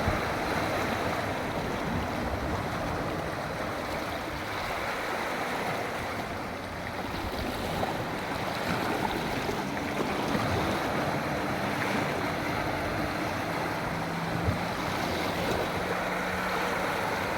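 Sea waves washing ashore, a steady rushing noise. From about halfway through, a low steady engine hum joins in.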